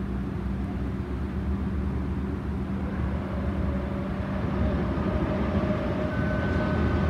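E464 electric locomotive hauling a rake of MDVC coaches on its approach: a steady low rumble that grows slowly louder, with a thin whine of two high tones joining in over the last few seconds.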